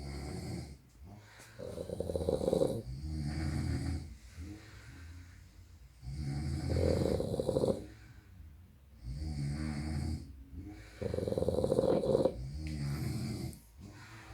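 A sleeping person snoring excessively, with loud rattling snores repeating every few seconds and softer snores between them.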